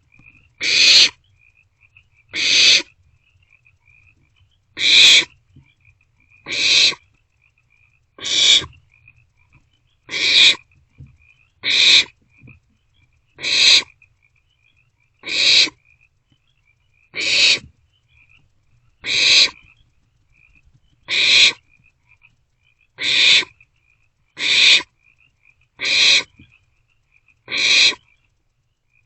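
Barn owlets giving their rasping, hissing begging calls, one about every two seconds in a steady rhythm, with faint high ticking between the calls.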